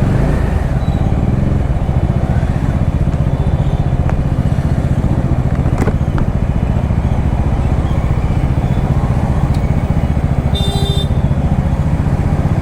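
Motorcycle engine running steadily under way, heard from the rider's seat. A short high-pitched tone sounds about ten and a half seconds in.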